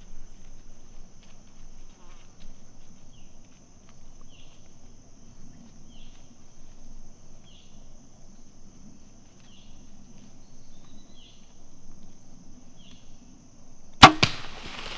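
A compound bow fired about a second before the end: one sharp, loud snap of the string and limbs as the arrow is released, with a smaller crack just after. Before it, a long quiet stretch with faint short chirps about every second and a half and a steady high tone that stops at the shot.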